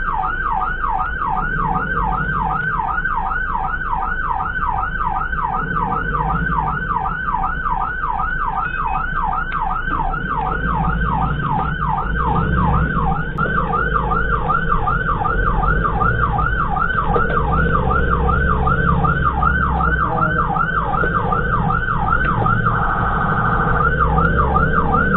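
Emergency siren on a fast yelp, its pitch sweeping up several times a second, over a vehicle's engine and road rumble. Near the end it switches to a steady tone for about a second, then the yelp resumes.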